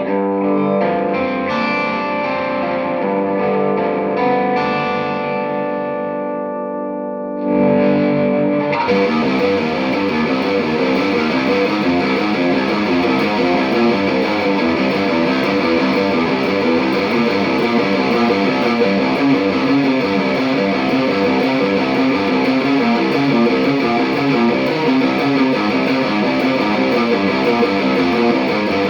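Electric guitar through a Mesa Boogie Mark V:25 amplifier: a clean, chorused arpeggio of ringing notes for about seven seconds, then a switch to the distorted channel with fast, dense riffing that is louder.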